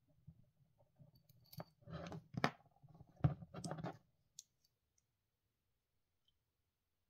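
Handling noise from a smartwatch being turned over in the fingers: a short run of sharp clicks and rubbing against its plastic case, lasting a couple of seconds.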